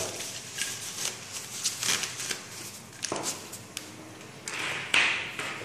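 Plastic wrapping rustling and crinkling as a security camera is unwrapped by hand, with light knocks as the camera and cables are handled on a desk. The loudest rustle comes about five seconds in.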